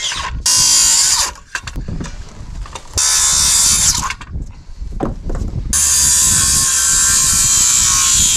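Makita circular saw cutting through a wooden rafter board in three runs: a short cut about half a second in, another at about three seconds, and a longer cut from about six seconds on. The saw winds down between cuts.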